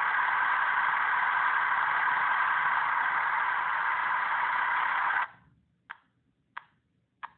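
An HO-scale model switcher's sound-effects decoder playing an engine idle through its tiny speaker, a steady hissing drone that cuts off suddenly about five seconds in. Three short clicks follow, evenly spaced, over near silence.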